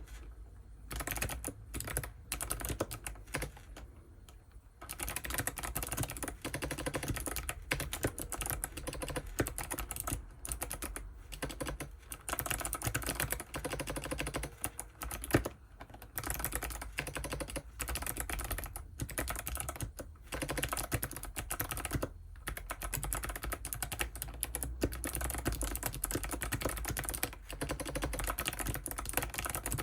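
Typing on an ABKO ADK05 mechanical keyboard with white switches: a rapid, continuous run of keystrokes with a few short pauses and one sharper, louder stroke about halfway through.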